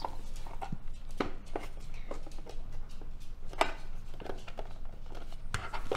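Scattered clicks and knocks as a hand screwdriver works the screws out of the back of a hard plastic watch box and the box is handled.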